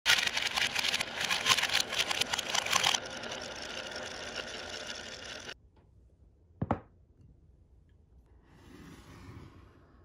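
A loud, dense mechanical clatter of rapid ticks, easing into a steadier whirring rattle that cuts off suddenly about five and a half seconds in. Soon after, a single sharp knock as a wooden marble-run slope is set down on the table, then a faint brief scrape.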